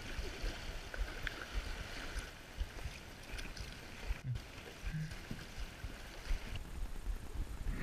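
River water rushing and splashing around a kayak's hull in a riffle, with the dip and swish of paddle strokes.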